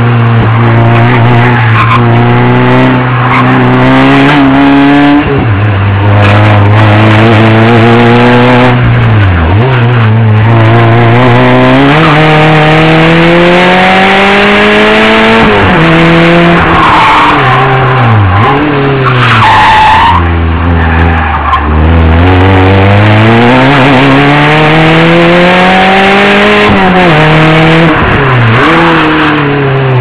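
Renault Clio 1.8-litre 16-valve four-cylinder engine at racing revs from on board, climbing in pitch through the gears on each straight and dropping sharply at each shift and braking point. Tyres squeal briefly twice through a slow corner near the middle.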